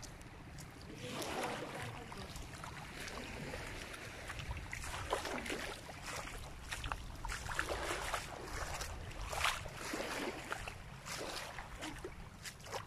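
Shallow seawater lapping and splashing in irregular bursts that begin about a second in, over a steady rumble of wind on the microphone.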